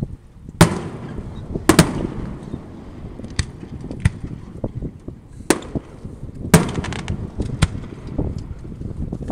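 Aerial fireworks shells bursting: a string of sharp bangs, the loudest in pairs about a second apart, with smaller pops between them and a low rolling rumble carrying on in the gaps.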